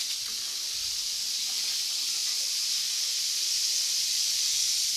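Several rattlesnakes rattling at once, a steady high, dry buzz that keeps on without a break: the defensive warning of agitated snakes that have just been handled and dropped into a bucket.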